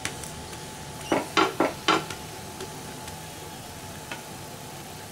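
A flat spatula knocks and presses a chapati against a non-stick tawa: four quick knocks about a second in and one light tick near the end, over a faint steady sizzle of the oiled pan.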